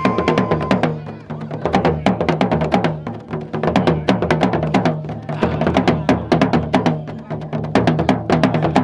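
Traditional Gurunsi funeral drumming: several drums beaten together in a fast, dense rhythm, sharp strikes over low pitched drum tones. A brief high held note sounds at the start.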